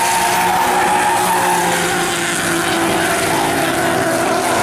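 Drift car engine held at steady high revs while its tyres squeal and spin in a sustained slide.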